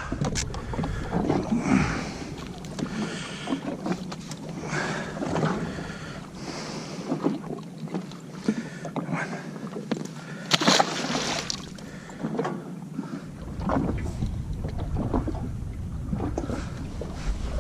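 Water sloshing and splashing against the hull of a drifting jet ski, with scattered small knocks and clicks.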